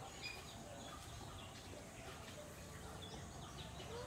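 Faint birds chirping, scattered short calls over a quiet outdoor background hum.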